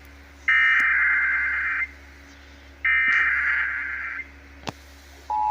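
Emergency Alert System SAME header data bursts: two buzzy digital tone bursts, each about a second and a half long and a second apart. A brief click follows, and near the end the steady two-tone EAS attention signal begins.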